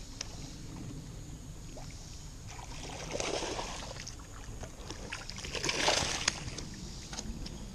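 A hooked bass thrashing and splashing in the shallows at the bank as it is landed, in two bursts about three and six seconds in, the second louder.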